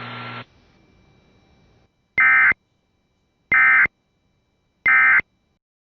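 Emergency Alert System end-of-message signal: three short, loud bursts of two-tone digital data (the SAME "NNNN" end-of-message code), each about a third of a second long and about a second and a half apart. Before them, a steady broadcast hiss with hum cuts off about half a second in.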